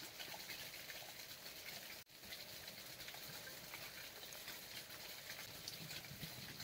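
Food cooking in a pan over a fire: a soft, steady hiss with scattered small crackles. It cuts out for an instant about two seconds in.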